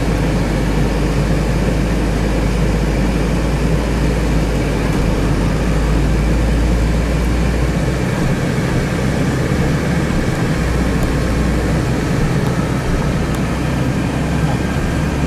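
Land Rover Defender 110 heard from inside the cab while driving on a muddy dirt track: a steady engine drone with tyre and road noise. The deepest part of the hum shifts for a couple of seconds a little past halfway, then settles back.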